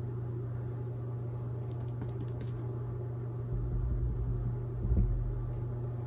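Steady low room hum, with a few faint ticks about two seconds in and soft low thumps from a round mop brush being tapped against a canvas on a wooden easel, the strongest about five seconds in.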